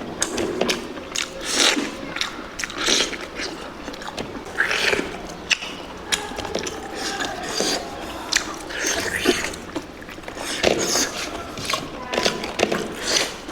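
Close-miked eating sounds: a person chewing mouthfuls of spicy pork curry, with irregular crunchy, crackly bites and wet mouth sounds every second or so.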